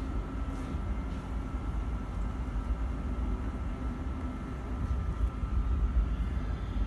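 Train station concourse ambience: a steady low rumble with a faint constant hum.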